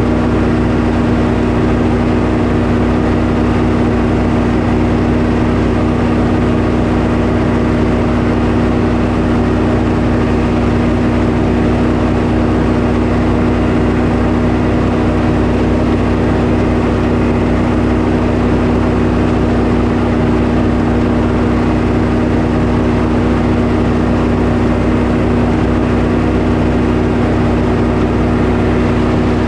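Sawmill's engine running at a steady, unchanging speed.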